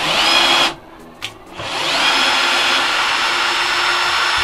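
Einhell TE-CD 18 Li cordless drill driver's motor whining as its bit works into a wooden block. There is a short run of under a second, then, after a pause, a longer run that rises in pitch and holds steady for about three seconds.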